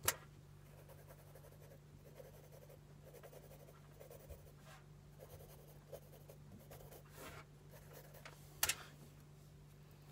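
Pencil scratching across sketchbook paper in short and longer strokes, with a few sharper, louder strokes, the loudest near the end. A steady low hum runs underneath.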